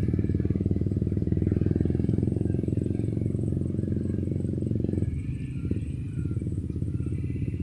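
A small engine running steadily with a rapid low pulse, its upper range easing off about five seconds in. Faint high calls, likely birds or insects, sound above it.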